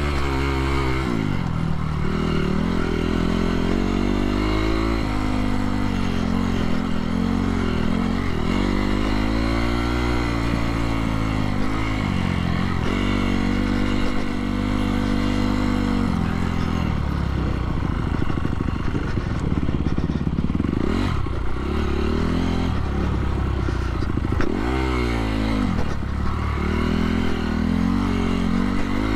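2017 Honda CRF250R's single-cylinder four-stroke engine running under load on an off-road trail, its pitch repeatedly rising and falling with throttle and gear changes.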